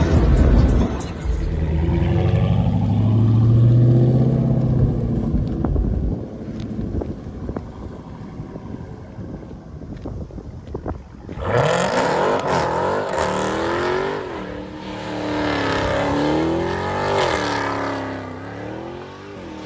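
Supercharged 6.2-litre V8 of a Dodge Charger Hellcat with the mid mufflers deleted for race bullet resonators, accelerating hard with a rising exhaust note for several seconds, then easing off. After that, a car spinning donuts with its engine revving up and down over screeching tires.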